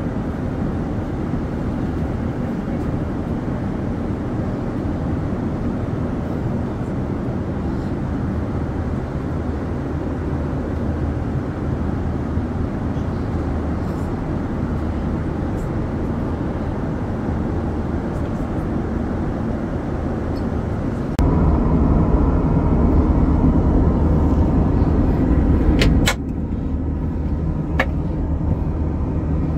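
Airbus A330-900neo cabin noise in cruise: a steady rushing drone of airflow and engines. It grows louder for a few seconds near the end, then drops at a sharp click, with another click shortly after.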